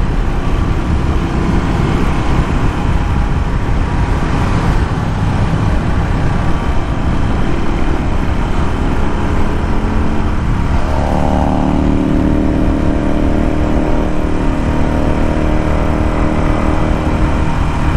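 Royal Enfield Classic 350's single-cylinder engine running at highway speed under heavy wind noise on the microphone. About 11 seconds in, an engine note rises in pitch and then holds as a steady drone.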